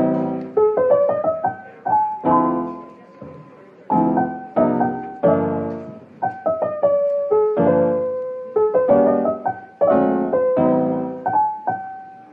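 Background music: a piano playing a gentle melody over chords, each chord struck and left to fade.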